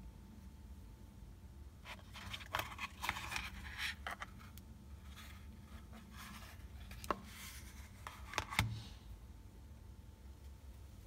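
Handling of a glitter-covered cardboard eyelash box: scraping and rustling as it is picked up and its lid opened, then a couple of sharp taps near the end, the last with a low thud, as it is shut and set back down.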